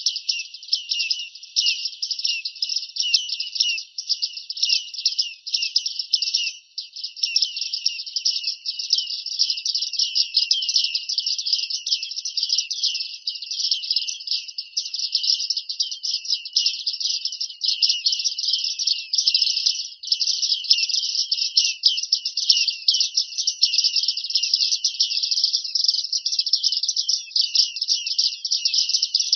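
Bearded reedling calls: an unbroken, dense stream of short, high ping-like notes, many a second.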